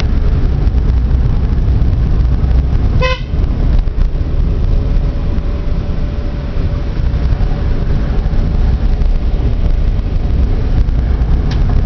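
Car cabin noise while driving: a steady, loud low rumble of engine and tyres on a worn country lane. One short horn toot sounds about three seconds in.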